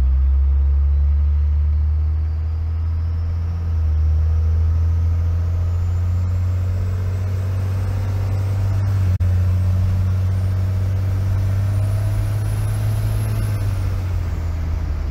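First-gen Dodge Cummins 5.9 inline-six diesel pulling under acceleration, heard from inside the cab, with the whistle of its 60/67/18 Holset HX35 turbo climbing steadily in pitch as it spools, then falling away near the end. The engine note dips for a couple of seconds early on before picking up again.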